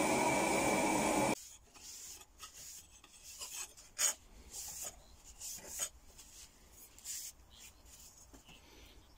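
Hot steel knife blade hissing steadily in the quench tank, cut off abruptly after about a second. Then a crumpled paper towel rubs along the quenched blade in quick, uneven wiping strokes.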